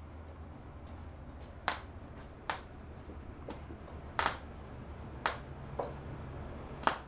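Cox Medallion .049 model glow engine being flipped by hand at the propeller to start it: a sharp snap with each flick, about seven at uneven intervals, with the engine not yet firing.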